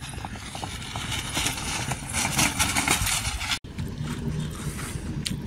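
Animal-drawn racing cart running over a dirt track, a rushing noise that grows loud about two seconds in and cuts off abruptly after about three and a half seconds. Steady open-air noise with wind on the microphone follows.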